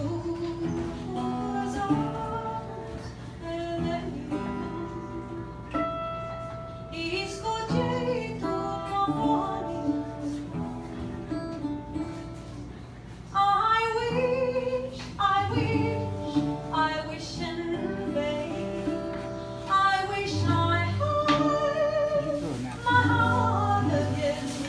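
A woman singing with plucked acoustic guitar accompaniment.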